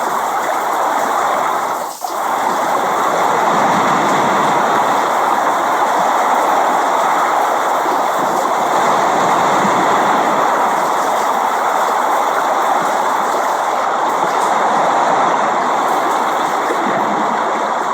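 Steady rain, an even hiss of falling water with no single drops standing out; the sound dips briefly about two seconds in, then carries on unchanged.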